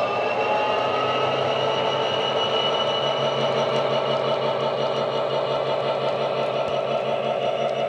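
Class 66 diesel locomotive sound from an ESU LokSound decoder, played through a small speaker in an OO-gauge model: the EMD two-stroke V12 running steadily under power, with a high whine rising slowly in pitch.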